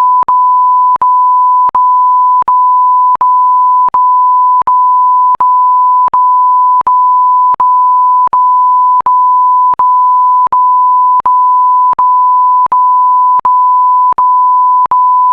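Electronic beep sound effect: one steady, pure, loud tone at a single pitch, sounded as back-to-back beeps about three quarters of a second long, each separated from the next by a brief click-like gap.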